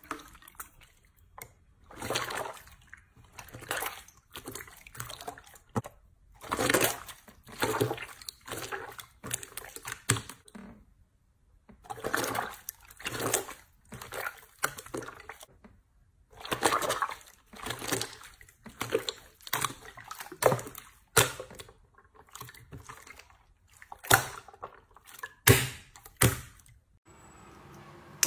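Clear blue guar-gum slime being pressed, kneaded and stretched by hand, giving irregular wet squelches and sloshing sounds about every second or two.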